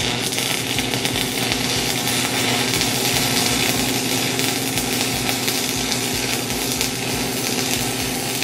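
Stick (shielded metal arc) welding arc crackling and sizzling steadily as a bead is run along a tightly fitted steel seam. The arc strikes right at the start.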